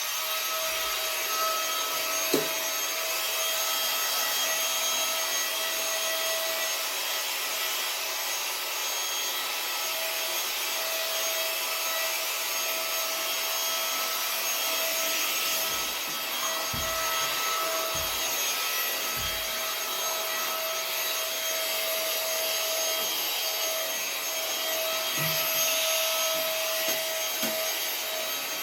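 Vacuum cleaner running steadily with a constant whine, its nozzle rubbing along the floor, with a few low knocks in the second half.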